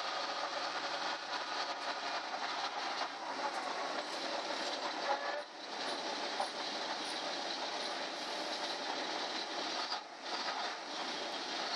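Steady cabin noise inside a moving school bus: a dense din of engine and road noise, dipping briefly twice, about five and a half seconds in and again near ten seconds.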